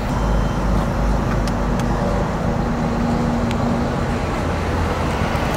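A vehicle engine running steadily with a low rumble; a steady hum over it fades out about four seconds in.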